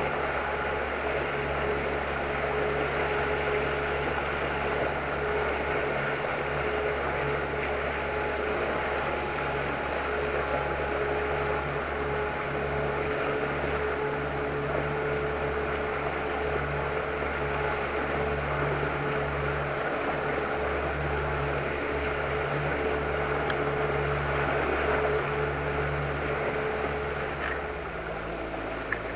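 Outboard motor of a small inflatable boat running steadily at slow trolling speed, with water rushing along the hull. Near the end the engine note drops and the sound eases a little.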